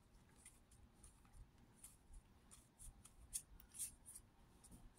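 Faint, short swishes of trading cards sliding over one another as a freshly opened pack is thumbed through card by card, about two a second, the loudest a little past three seconds in.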